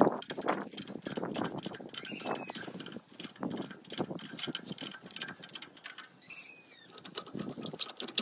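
Socket ratchet wrench clicking in quick runs, with metal tool clinks, as bolts on a tractor's front mounting bracket are turned. Two short high chirps sound, about two seconds in and again near six seconds.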